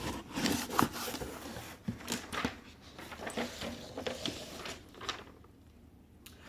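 A small package being opened by hand: rustling and crinkling of packaging with scattered clicks and scrapes, dying down about five seconds in.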